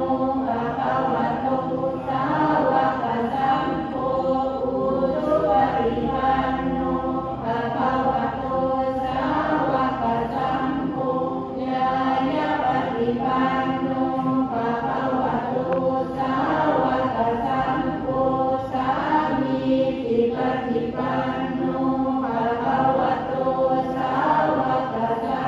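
A group of voices chanting Buddhist prayers in unison, a steady recitation held on a few pitches, with short pauses for breath.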